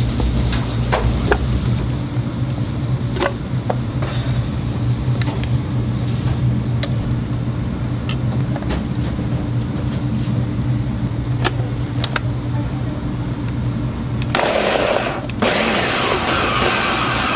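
Countertop blender starting up about three seconds before the end and running loudly as it chops small shrimp and onion chunks, with a brief dip soon after it starts. Before it, a steady low kitchen hum with scattered light clicks and knocks of knife and utensils.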